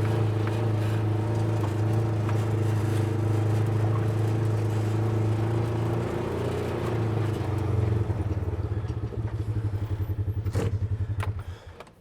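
Small off-road buggy engine running steadily, dropping to a pulsing idle about eight seconds in, then shut off near the end.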